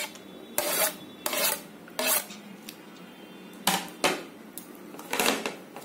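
Slotted steel spoon scraping cooked rice off a plate and knocking against a steel pot as the rice is spooned in, in five short strokes at uneven intervals.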